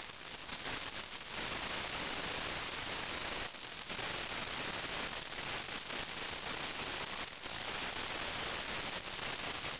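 Steady static-like hiss, briefly dipping about three and a half and seven seconds in.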